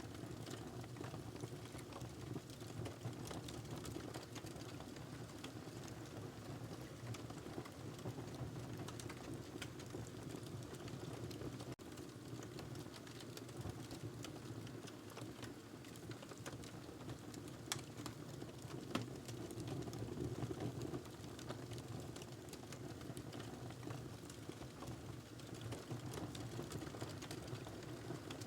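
Wood fire burning in a fireplace: a steady low rush of flame with irregular crackles and pops of the logs throughout, two sharper pops a little past halfway.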